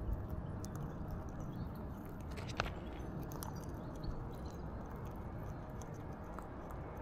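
Alexandrine parakeet feeding, its beak cracking and crunching food: scattered small clicks, with one sharper crack about two and a half seconds in. A steady low background rumble lies underneath.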